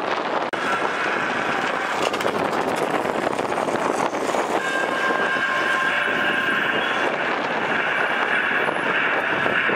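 Double-decker bus engine running as the bus drives past, with a steady high whine joining about halfway through.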